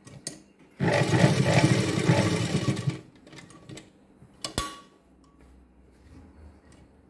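Sewing machine stitching a short run of about two seconds, then stopping at the end of the stitched line. A single sharp click follows about four and a half seconds in.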